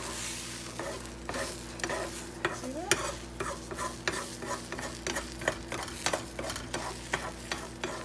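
Beaten eggs sizzling in a frying pan as a metal spoon stirs and scrapes them off the pan's edges, with frequent sharp clicks of the spoon against the pan.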